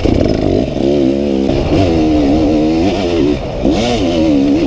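Dirt bike engine revving up and down under the rider's throttle, its pitch climbing and dropping several times in quick succession, heard close up from the bike itself.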